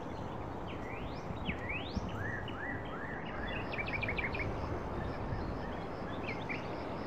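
Birds chirping over a steady outdoor hiss: a few quick rising calls in the first two seconds, a rapid run of short repeated notes around the middle, and a few more calls near the end.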